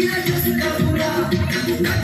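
Loud dance music with a steady beat, played for people dancing.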